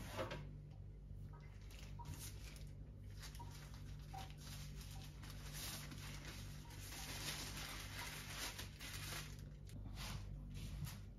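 Faint rubbing of a cloth wiping a stainless-steel kitchen sink, in soft irregular strokes, over a steady low hum.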